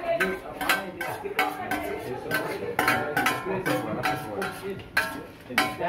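Metal spoon knocking and scraping against a stainless steel bowl, irregular clinks that ring briefly, as chopped tomatoes are emptied into a frying pan.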